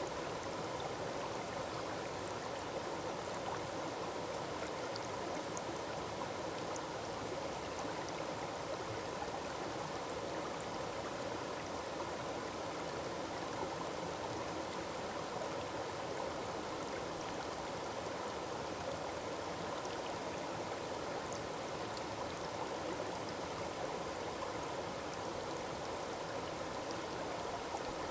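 Small forest waterfall and stream, water falling and rushing steadily over rocks.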